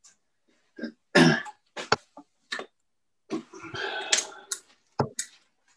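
Darts being pulled out of a Unicorn Eclipse Pro bristle dartboard: scuffling and several sharp clicks, with a loud, short cough-like burst about a second in.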